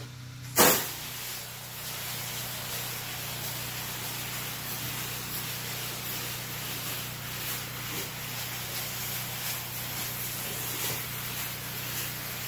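A softwash spray wand opens with a sudden burst about half a second in. It then hisses steadily as low-pressure soap solution sprays onto wooden siding, over the steady low hum of the pump.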